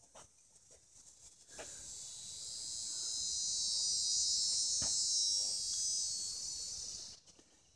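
An insect's high, dense buzz that swells over a few seconds and then stops abruptly near the end.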